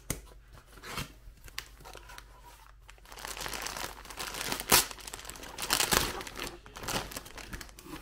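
A cardboard box flap pulled open with a couple of small knocks, then the clear plastic bag inside crinkling as hands grab and pull at it, with a few sharp crackles past the middle.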